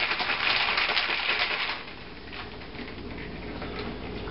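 Ice rattling hard inside a metal cocktail shaker as a margarita is shaken, stopping about two seconds in; then a quieter stretch with a few faint clinks as the chilled margarita is poured from the shaker into the glass.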